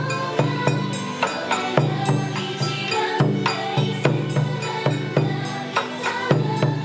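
Bon odori dance music: a recorded J-pop song played over loudspeakers, with live taiko drums, a large barrel drum and a small shime-daiko, struck along to its steady beat.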